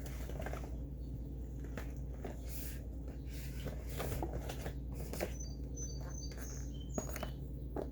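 Makeup products and their packaging being handled: scattered light clicks and rustles, with a few short high squeaks past the middle.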